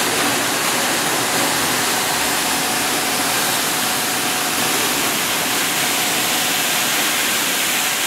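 Steady rush of water jets spraying from the overhead spray bars of a strawberry washing machine onto fruit on its conveyor.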